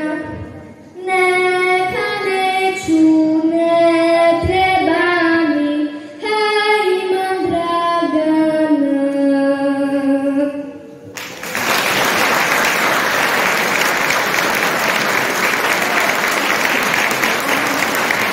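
A girl singing solo into a microphone with no accompaniment, holding long notes and sliding between them. The song ends about eleven seconds in and the audience breaks into steady applause.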